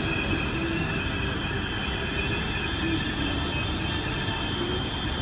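Hurricane wind blowing against a high window, a steady rumble with high thin whistling tones and a lower wavering whistle.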